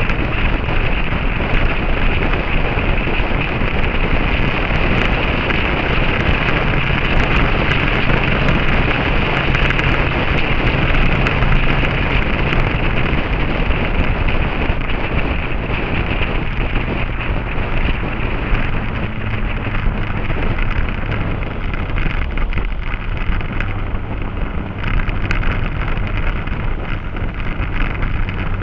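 Motorcycle on the move, heavy wind buffeting the microphone over the steady engine note, which shifts pitch a few times as the speed changes.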